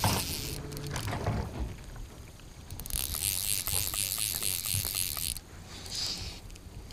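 Fly reel's click-pawl ratchet buzzing in rhythmic pulses, about four a second, for a couple of seconds in the middle, with a shorter burst near the end, as a hooked rainbow trout is played in.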